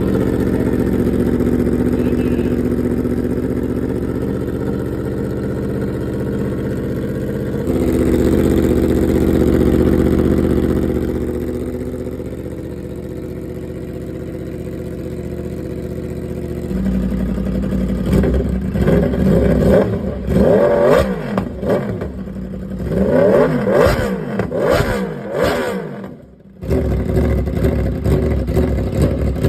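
Big 1000 cc sport motorcycle engines idling steadily, then revved hard in a run of quick throttle blips, the pitch shooting up and falling back again and again. Near the end the sound drops out for a moment and the steady idle returns.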